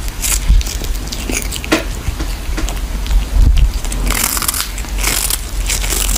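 A kitten gnawing and crunching on a small fish held in its paws: irregular crisp crunches and crackles, with bursts clustered about half a second in, near the middle and again toward the end.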